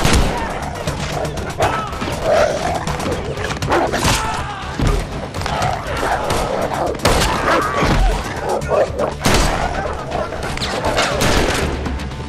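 Action-film gunfight soundtrack: scattered loud gunshots and heavy impacts, with the strongest strikes near the start, about four seconds in, about seven seconds in and about nine seconds in. Grunting voices and the film's score run underneath.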